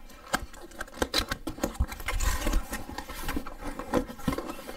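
Cardboard box being opened by hand: irregular crackles, clicks and rustling of the cardboard flaps, with a longer scraping rub about two seconds in.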